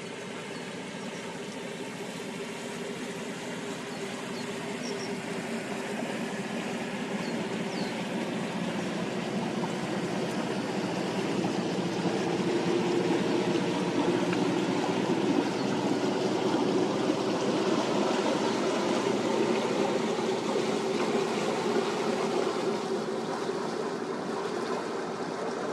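A river cruiser's engine passing on the river with water lapping, growing louder to a peak midway and easing off toward the end.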